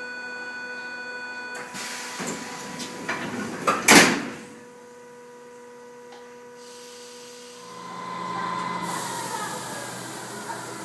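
Sliding passenger doors of an SNCF Z 5300 electric commuter train closing: a couple of seconds of rattling and clatter, then the leaves slam shut about four seconds in, the loudest sound. An electric whine rises in near the end as the train's motors start up.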